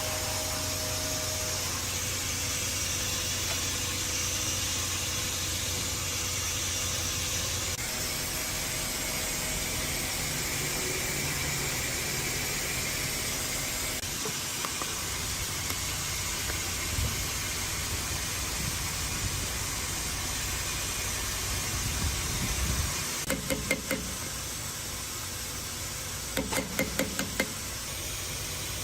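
A machine running with a steady hiss over a low hum, then bursts of rapid knocking near the end.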